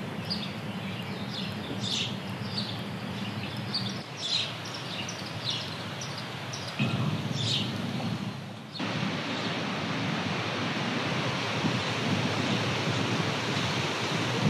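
Small birds chirping over quiet outdoor background noise, in repeated short high calls several times a second. About nine seconds in, this cuts to the steady rush of ocean surf breaking.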